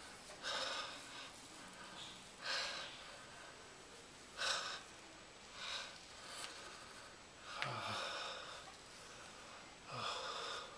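A deeply relaxed man breathing heavily through his open mouth, with a noisy breath about every one to two seconds. About eight seconds in, and again near the end, a low sigh falls in pitch.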